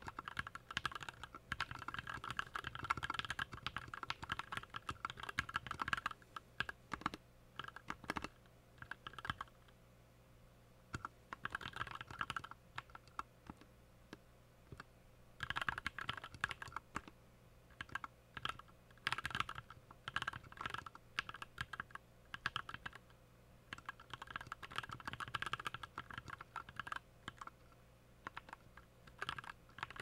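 Skyloong GK61 Pro mechanical keyboard with PBT keycaps being typed on at a typing-test pace of about 62 words a minute: a rapid patter of key clacks in runs, with short pauses between phrases.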